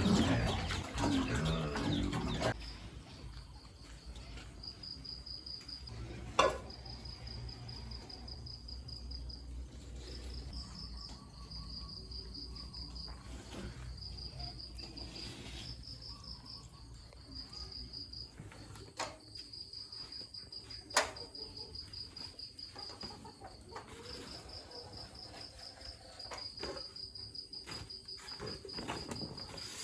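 Crickets trilling in repeated high, even-pitched pulses, each run about a second long with short gaps between. A louder jumble of noise fills the first two seconds or so, and two sharp knocks stand out, one about six seconds in and one about twenty seconds in.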